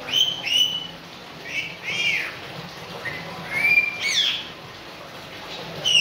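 Senegal parrot giving short whistled calls, mostly in pairs about half a second apart, each sliding in pitch.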